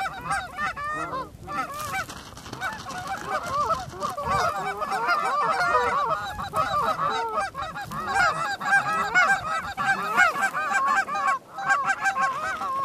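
A flock of Canada geese honking, many calls overlapping continuously, with a brief lull near the end.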